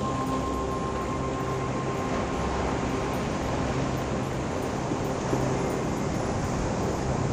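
Sea surf washing steadily over rocks, a continuous rushing noise. A faint sustained high tone fades out about two seconds in, with softer low tones coming and going underneath.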